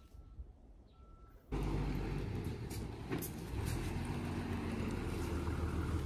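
Quiet at first apart from a faint, repeated short beep. About a second and a half in, a city bus's diesel engine comes in loud and steady as the bus pulls up close by, with a few short air hisses.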